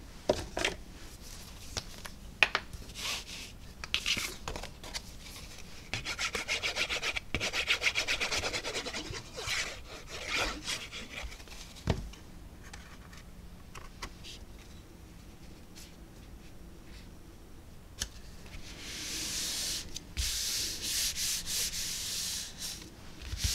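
Hands handling and rubbing thin card stock: paper rustles and light taps, with a few seconds of rapid fine rustling about six seconds in. Near the end comes a steady rubbing hiss as palms smooth a glued piece of white card stock flat onto the card base.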